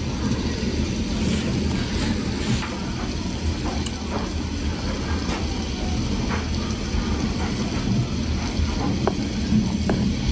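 Metal spoon digging and scraping in a clear plastic tub of mashed potatoes, with scattered short clicks and scrapes as it knocks against the tub, over a steady low rumble.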